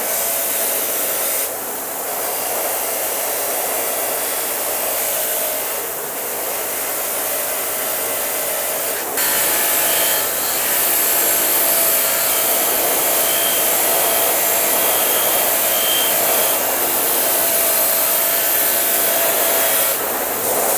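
A power tool running steadily with a continuous rushing hiss, used to clean rust off old pliers. The level shifts slightly a few times, stepping up about nine seconds in.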